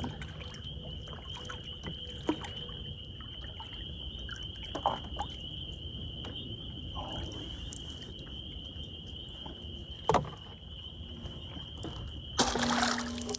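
Quiet water sounds around a kayak under a steady high-pitched whine. There is a sharp knock about ten seconds in and a burst of rushing noise near the end, around a bowfishing shot at a carp that goes under the fish.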